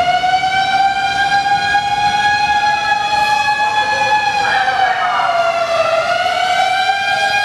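Fire engine siren wailing: a long held tone that sags in pitch about three-quarters of the way through and climbs back up.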